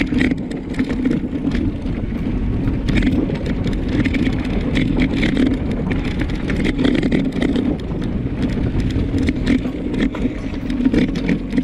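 Mountain bike rolling fast over a dirt road, heard from a camera riding on the bike or rider: a steady rumble of the tyres on the packed dirt and gravel, broken by frequent rattles and clicks as the bike and mount jolt over the bumps.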